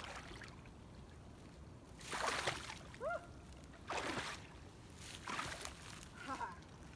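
Water splashing around legs in waders as someone wades in shallow lake water, in three short bursts.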